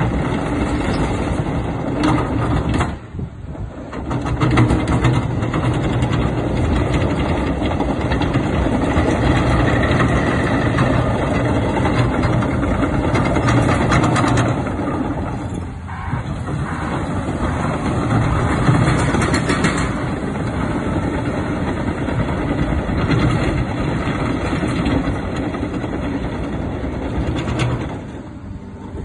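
Caterpillar 953D track loader's diesel engine running as the machine drives and turns on its tracks, with the sound dipping briefly three times.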